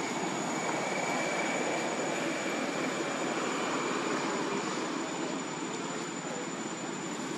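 Steady outdoor background noise: an even hiss with a thin, high-pitched whine running through it, and no distinct calls or knocks.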